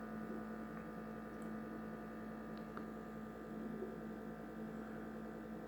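Pot of water heating on an electric stove element turned up to max, just before the boil as the first small bubbles form on the bottom: a steady faint hum with a few faint ticks.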